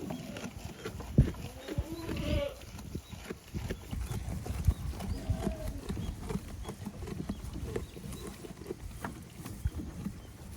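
A goat bleats once, about two seconds in, and gives a short faint call a few seconds later, over strong wind buffeting the microphone.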